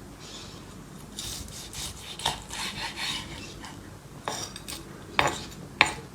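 Kitchen utensils scraping against cookware for a couple of seconds, then a few sharp clinks near the end.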